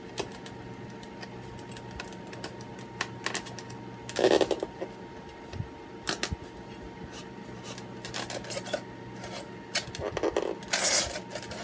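Small handling noises of tabletop crafting: scattered light taps and clicks, with two short scraping rubs about four seconds in and near the end, as a glue stick is rubbed onto a foam craft pumpkin and a letter sticker is pressed down on it.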